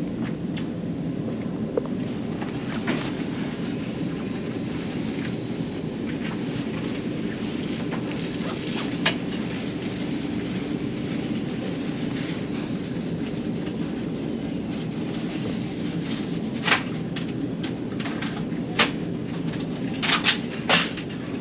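Steady low rumble of a large passenger ferry's engines and hull, heard on board, with a sharp click about nine seconds in and a few more clicks and knocks near the end.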